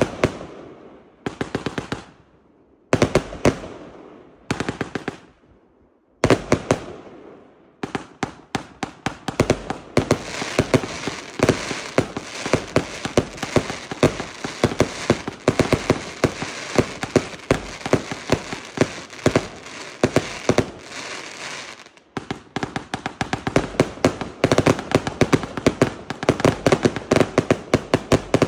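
Pyrocentury El Senor compound firework cake (144 shots, 25 mm) firing. For the first six seconds it fires short volleys of rapid shots about a second and a half apart, then runs into near-continuous fast firing, with a brief lull at about twenty-two seconds before the fast shots resume.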